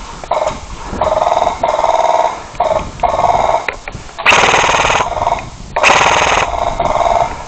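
Airsoft electric guns (AEGs) firing full-auto bursts, a rapid clatter over the gearbox whine. About seven bursts of half a second to a second each come in quick succession. The ones about four and six seconds in are the loudest.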